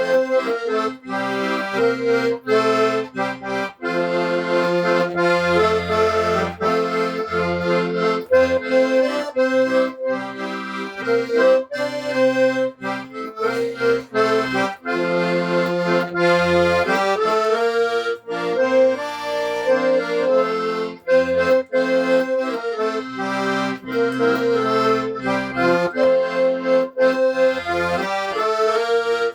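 Accordion playing a traditional-style tune: held chords with a moving melody on top and separate bass notes underneath.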